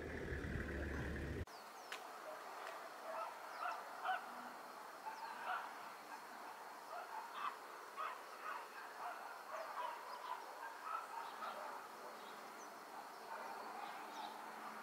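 Wind rumbling on the microphone for about the first second and a half, cut off abruptly. Then a busy chorus of short bird calls, several a second, with no pattern to their spacing.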